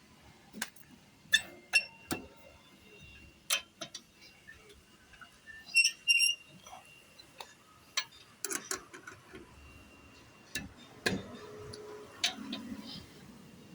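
Irregular metallic clicks, knocks and clinks of a wheel spanner and wheel bolts as a car wheel is tightened, with a short ringing clink about six seconds in.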